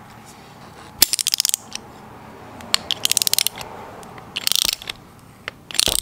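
Ratchet wrench clicking in four quick runs of rapid clicks as it is swung back and forth to tighten a brass threaded fitting.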